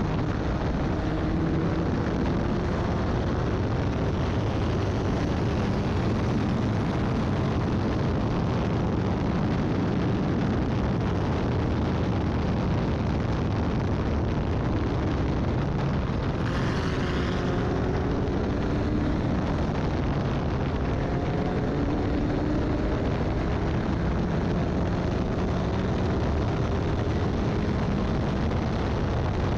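Formula Ford single-seater race car at speed, its engine note climbing again and again as it accelerates, over a constant rush of wind and road noise. A brief harsher rasp comes a little past halfway.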